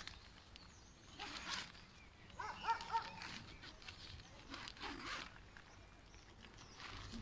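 A tent zip being pulled along the fabric of a flattened Eurohike Teepee tent, in short rasping strokes, once early on and again near five seconds in. In between, about two and a half seconds in, the loudest thing is a brief run of high-pitched animal-like calls, a few short notes.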